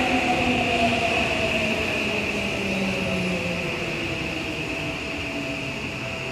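Seibu 2000 series electric train slowing to a stop at the platform: its motor whine slowly falls in pitch and fades, over a steady high tone.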